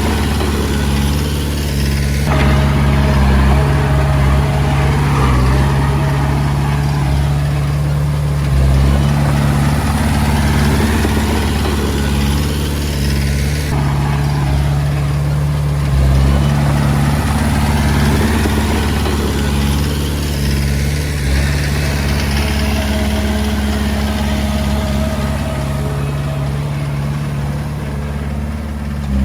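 Komatsu D20A bulldozer's diesel engine running steadily as the dozer works, its note shifting a little in level, with a faint higher whine coming in twice.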